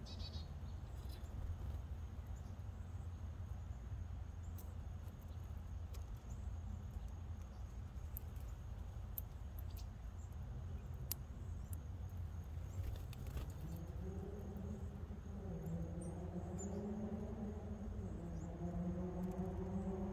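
Outdoor backyard ambience: a steady low rumble with scattered small clicks and a faint, steady high insect drone. About two-thirds of the way through, a distant motor hum comes in, wavering up and down in pitch.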